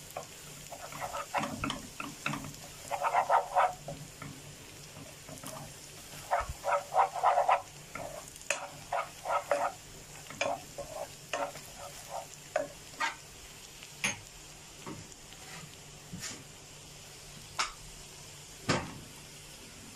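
Minced garlic sizzling in melted butter in a small nonstick saucepan, stirred with a wooden spoon that knocks and scrapes against the pan in short runs of quick strokes. The garlic is being fried until it turns a light golden colour.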